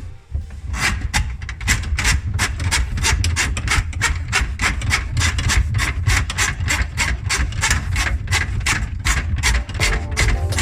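Repeated rasping, rubbing strokes at an even pace of about three a second, like hand scrubbing or scraping.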